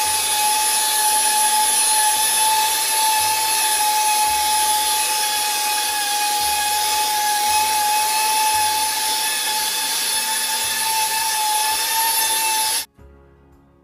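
Electric random orbital sander running steadily, its motor giving a high whine with a hiss on top, as its 1200-grit automotive sandpaper pad sands a marble-effect plaster wall. The sander cuts off suddenly near the end.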